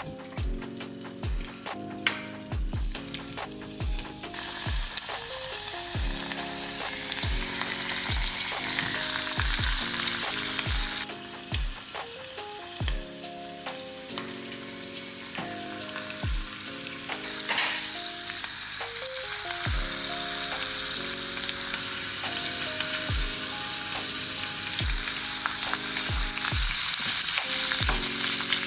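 Vegetables frying in hot butter in a small stainless steel pot: a steady sizzle that sets in about four seconds in and grows louder near the end. Background music with a steady beat plays underneath.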